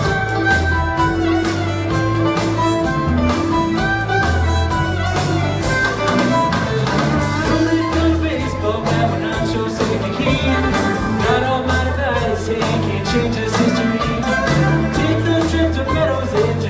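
Live string band with drums playing a song: banjo, guitars, fiddle and upright bass over a steady drum and bass beat, with a singing voice, recorded from the audience.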